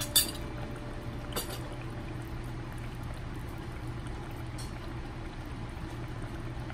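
Satay sauce base simmering in a stainless steel saucepan: a steady bubbling hiss. A couple of light clicks come in the first second and a half.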